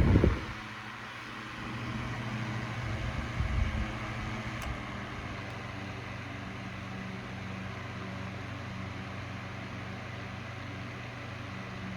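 Mainstays FN2006W 9-inch box fan running: a steady whoosh of moving air over a low motor hum. A louder rush cuts off sharply just after the start, and the fan then runs evenly.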